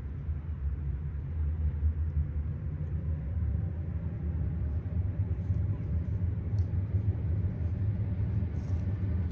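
A steady low rumble throughout, with a few faint ticks.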